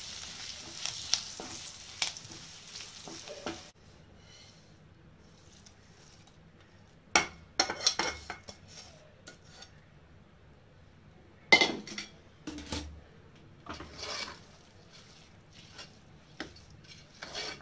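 Hot ghee tempering sizzling in a kadai as a metal spoon stirs it, stopping abruptly a few seconds in. After that, a steel spoon knocks and scrapes against the metal kadai and an aluminium pressure cooker in several short clusters as the tempering is tipped into the pongal and stirred in.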